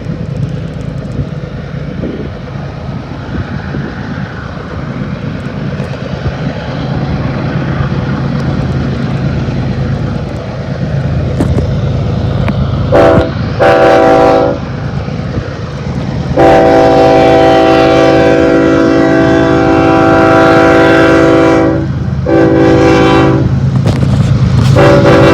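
Approaching freight train's diesel locomotives, led by BNSF 6961, rumbling and growing louder, then the lead locomotive's air horn sounding two short blasts, a long blast of about five seconds, and more short blasts near the end.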